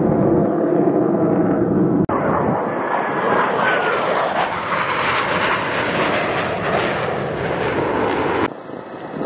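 Jet engine noise from Blue Angels F/A-18 Super Hornet jets flying the display, with a faint whine gliding in pitch. The sound changes abruptly about two seconds in and drops near the end, where the footage is cut.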